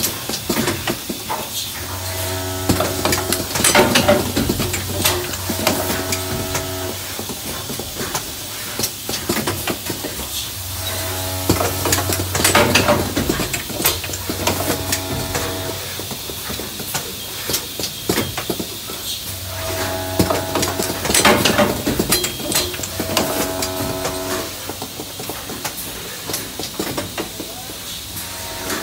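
Suction catheter assembly machine running: its vibratory bowl feeders hum in spells of about five seconds, roughly every nine seconds, while pneumatic cylinders cycle with repeated sharp hisses and clacks.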